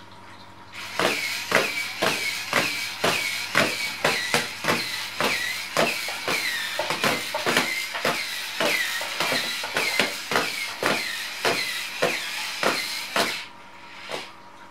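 Motorised cat-teaser toy robot running: a rapid, even clicking, about three clicks a second, each with a short squeaky whine. It starts just under a second in and stops abruptly near the end.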